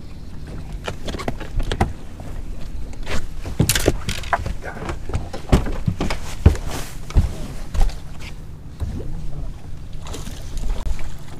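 Choppy water slapping against the hull of a fiberglass bass boat: irregular knocks and splashes over a low steady rumble.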